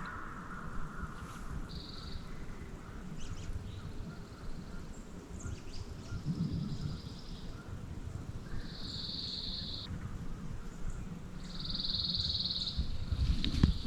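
Birds calling in woods at daybreak: a short, high trill of about a second repeats four times over a low background rumble. A wild turkey gobbles faintly in the distance.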